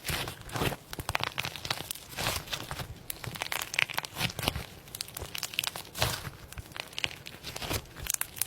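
Slime being squeezed, pressed and pulled by hand, giving many quick, irregular crackles and crunches with some tearing sounds as it stretches apart.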